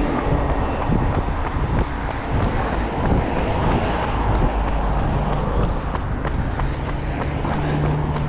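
Road traffic: a motor vehicle running nearby, with wind rumbling on the microphone.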